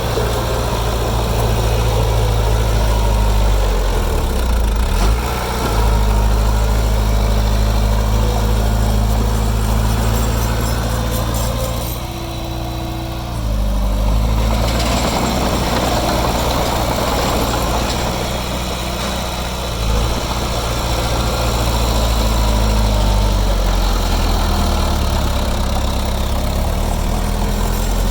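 Heavy diesel engine of earthmoving machinery running steadily, its pitch shifting a few times as the load changes. It drops briefly quieter about halfway through, then picks up again.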